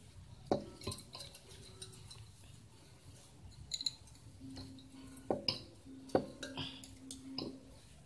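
Light metal clinks and taps as a tool and small parts are handled on the open top of a refrigerator compressor: about a dozen separate sharp clicks, unevenly spaced.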